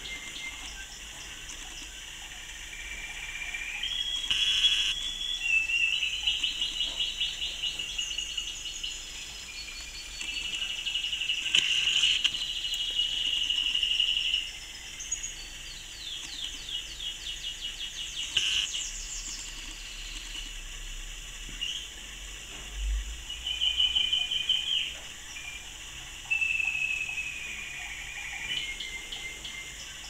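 Caged canaries singing: bursts of fast, high trills and chirps, with pauses between phrases.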